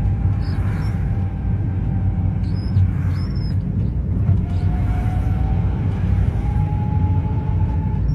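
Renault Sandero gearbox growling while driving in third gear: a thin whine over the low rumble of the car, climbing in pitch over the second half. The mechanic puts it down to the gearbox, after oil leaked out through a torn gearbox boot, a chronic fault on these cars.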